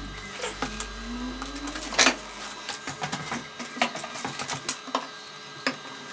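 Scattered sharp clicks and knocks, the loudest about two seconds in, typical of metal parts and tools being handled at a workbench. A low steady hum fades away over the first two to three seconds.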